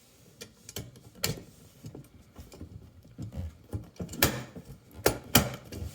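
Keystone jacks being pushed and snapped into a patch panel: a run of sharp plastic clicks and knocks, the loudest coming in a cluster near the end.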